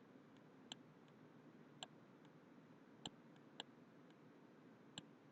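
Near silence broken by five faint, irregularly spaced clicks, from a stylus tapping a pen tablet as digits are handwritten.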